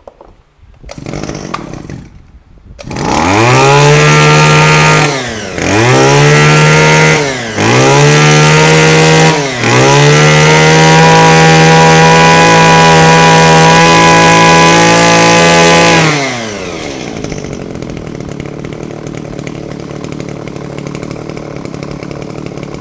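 Robin Ranger BR19 20cc two-stroke brush cutter engine, pull-started, catching about three seconds in. It runs at full throttle with the throttle briefly let off and squeezed again three times, is held at high revs for about six seconds, then drops back to a much quieter steady idle.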